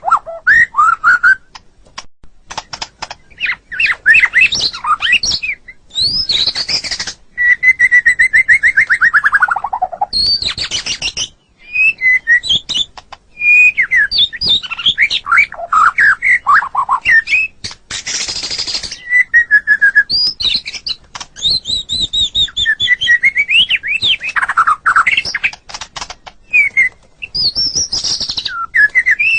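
White-rumped shama (murai batu) singing a long, varied song of loud, clear whistles, quick trills and chattering clicks, with short pauses between phrases. About a third of the way in one long whistle slides slowly downward.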